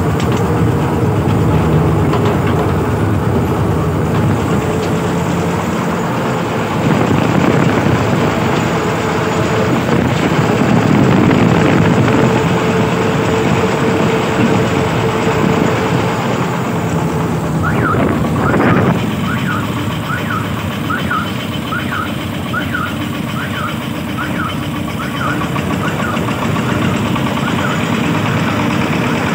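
Công nông farm truck's engine running steadily. About two-thirds of the way in the engine note shifts, and a short high chirp starts repeating a little over once a second.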